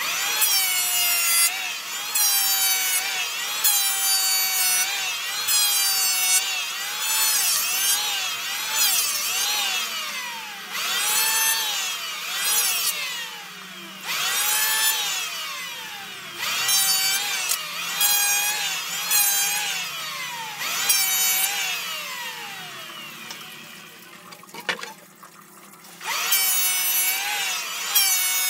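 Makita DHS900 36 V brushless cordless circular saw cutting wood in repeated passes. Its motor pitch repeatedly sags and recovers. Near the end the saw winds down and goes quiet briefly, with a click, then starts up again.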